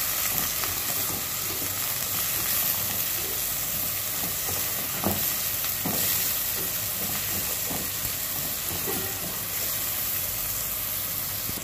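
Chopped garlic, onion and ginger sizzling steadily in hot oil in a metal pot while a spatula stirs them, with a few light clicks of the spatula against the pot midway.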